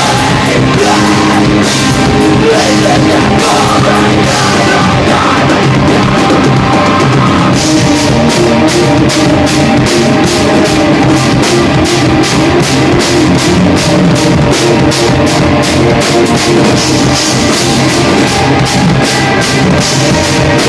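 Live rock band playing: two electric guitars over a drum kit. About seven seconds in, the drums change to a steady, fast, even beat on the cymbals.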